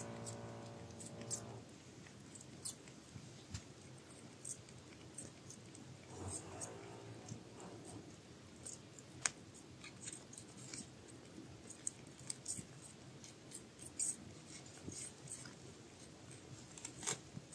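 Newborn kittens suckling at their mother's teats, making faint, irregular little clicks and smacks as they nurse.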